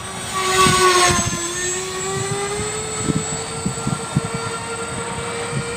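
Radio-control model airplane's motor and propeller running in flight as a steady droning whine. Its pitch dips slightly, then rises and holds as the throttle comes up, with gusty wind rumbling on the microphone.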